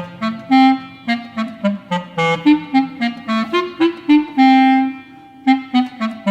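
Background music: a woodwind melody of short, bouncy notes with one long held note past the middle.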